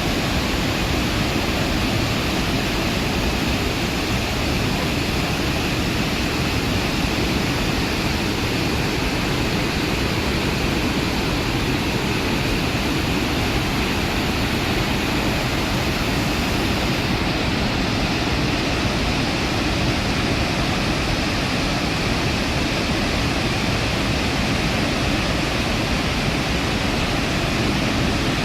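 Iguazu Falls, a huge waterfall, thundering steadily: a continuous, even rush of falling water with no breaks.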